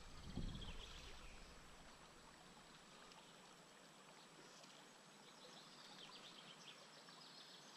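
Faint, steady hiss of river water flowing, barely above near silence, with a brief low bump just after the start.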